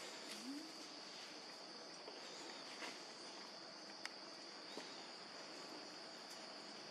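Steady high-pitched insect drone, with a few faint clicks.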